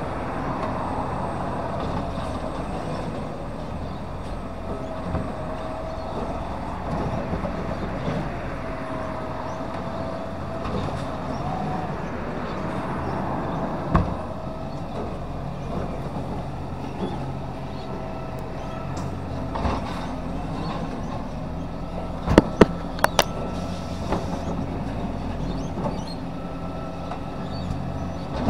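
Side-loader garbage truck running at the kerb while it works through a row of wheelie bins, its hydraulics giving a wavering whine over the engine. A sharp knock comes about halfway through, and a quick cluster of sharp knocks about three-quarters of the way through, as bins are handled.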